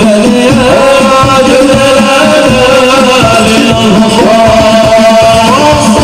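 Sholawat devotional song sung by male voices through microphones and a loud PA, in long held, wavering notes that slide up near the end, over a steady beat of hand-played frame drums (rebana).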